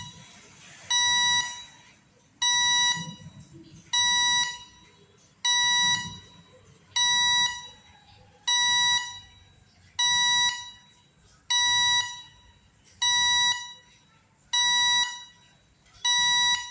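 Arduino real-time clock's hourly chime: a high-pitched electronic beep, made by pulse-width modulation on a digital output pin and played through a small amplifier and speaker, repeating about once every second and a half. Each beep is about half a second long, starts sharply and fades out. The chime is triggered as the minutes reach zero, on the hour.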